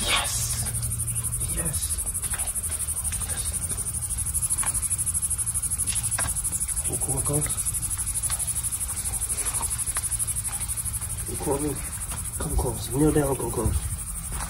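A steady, high-pitched insect chorus with a fast, even pulsing, over a low rumble.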